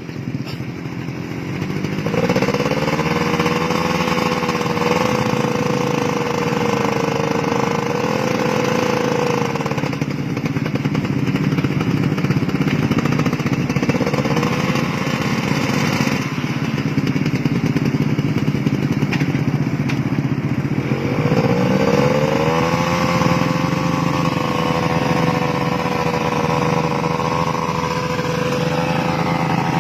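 Homebuilt aircraft's Kawasaki Ninja motorcycle engine running and being revved. It revs up about two seconds in and holds high, drops back near the ten-second mark, rises briefly once more, then revs up again past the twenty-second mark and holds high to the end.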